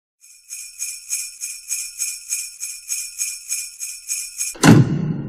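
Sleigh bells shaken in a steady rhythm, about three shakes a second. A loud low ringing hit comes near the end and dies away.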